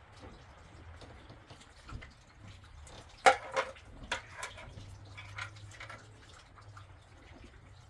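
Scattered light clicks and knocks, with one sharp loud clatter about three seconds in and a few smaller knocks after it.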